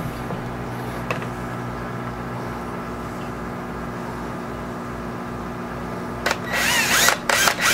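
Cordless drill running steadily, its bit boring into a thin acrylic plate. About six seconds in it turns much louder and harsher, with a wavering high squeal as the bit cuts into the acrylic.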